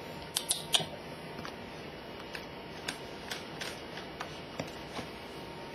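Small clicks and taps of a toddler handling things at a plastic drawer unit: three sharp clicks close together about half a second in, then scattered lighter ticks.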